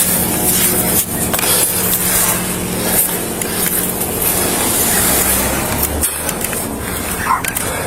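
A vehicle engine running steadily under a dense rustling, rubbing noise, with a few knocks.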